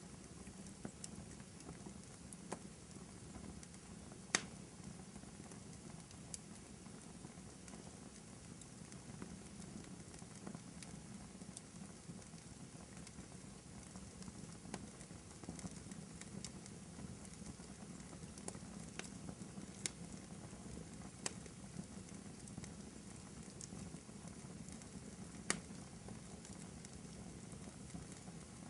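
Fire in a fireplace crackling: a faint steady rumble of flames with scattered sharp pops and snaps. The loudest pop comes about four seconds in, and another strong one near the end.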